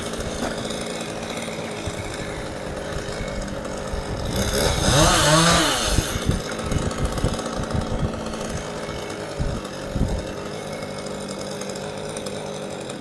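Chainsaw running steadily, revving up and back down once about four to six seconds in.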